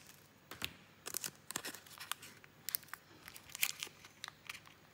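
Foil wrapper of a Pokémon booster pack crinkling as it is handled and opened, in a run of short, irregular crackles.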